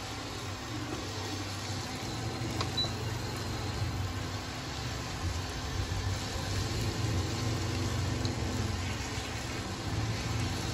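A spatula stirring and scraping a thick spice paste frying in a nonstick pan, with a faint sizzle, over a steady low hum.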